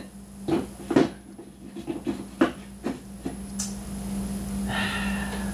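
Metal hand tools being handled off-camera: about six separate knocks and clinks in the first three and a half seconds, then a short higher-pitched scrape near the end.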